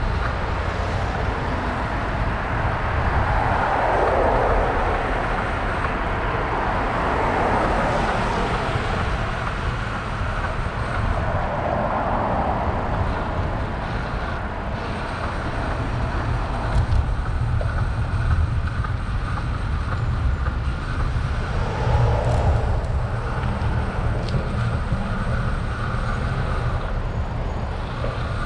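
Road traffic heard from a moving bicycle: the tyre-and-engine noise of vehicles going by swells and fades four times, over a steady low rumble of wind on the microphone.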